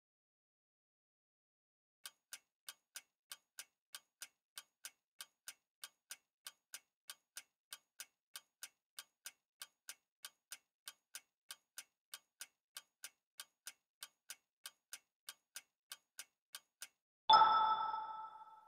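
Quiz countdown timer sound effect: clock-like ticking, about three to four ticks a second for some fifteen seconds. It ends in a bright chime that marks the correct answer.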